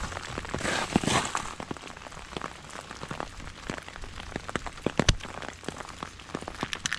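Freezing rain and ice pattering and ticking irregularly onto ice-coated surfaces over a steady hiss, with one sharper click about five seconds in.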